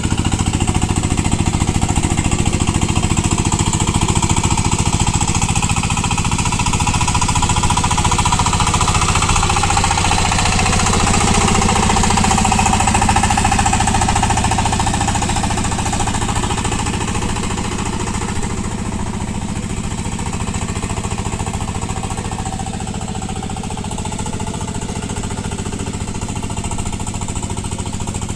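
Single-cylinder diesel engine of a VST walk-behind power tiller running steadily under load with a rapid, hammering beat, growing a little quieter about two-thirds of the way through.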